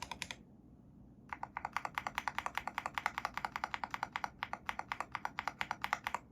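Fast typing on a Mathew Tech MK80 mechanical keyboard with lubed Akko V3 Cream Blue tactile switches: a quick run of keystrokes that breaks off for about a second, then resumes and stops just before the end.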